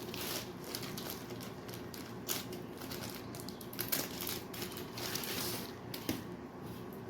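Packaging of a new chainsaw bar being opened and handled: irregular crinkling and rustling with scattered clicks, and a sharper knock about six seconds in.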